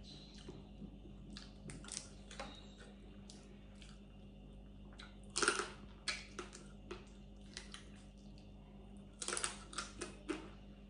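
A person eating cooked blue crab picked with the fingers: scattered short wet mouth clicks and chewing smacks, loudest in two clusters about five and a half seconds and nine seconds in.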